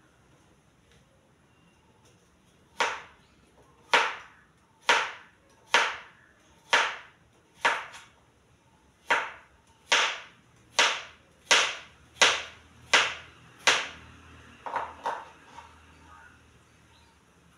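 Kitchen knife chopping through a vegetable onto a plastic cutting board: about thirteen sharp, evenly paced knocks roughly a second apart, getting a little quicker, followed by two lighter taps.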